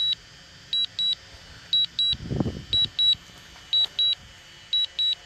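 DJI Mavic 2 Zoom remote controller beeping in quick high-pitched pairs about once a second, the alert it sounds while the drone is on automatic return-to-home. A brief low rumble swells and fades about two seconds in.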